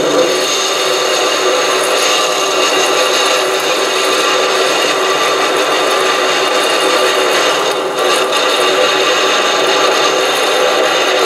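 SC2 mini lathe running under load while a high-speed steel parting tool cuts into 28 mm aluminium rod: a steady hum of several pitches from the motor and gearing, under the scraping hiss of the cut. The cutting noise briefly eases about eight seconds in.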